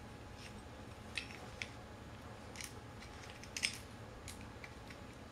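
Scattered sharp metallic clicks and taps from handling the parts of a wheelchair caster wheel as it is put back together with its copper bushings, the loudest a quick double click about three and a half seconds in.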